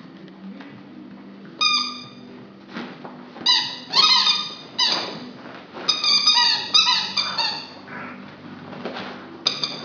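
Squeaky dog toy squeaked over and over by a puppy biting and chewing it: short, high squeaks, several in quick succession through the middle, some bending in pitch.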